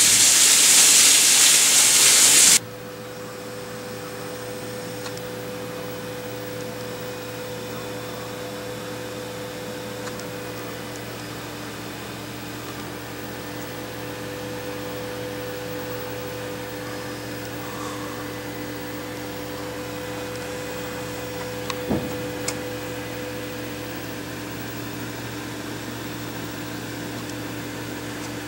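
A loud hiss for about the first two and a half seconds that cuts off suddenly, then a steady mechanical hum with a few steady tones, from a running machine such as a fan or appliance. There is a brief click about 22 seconds in.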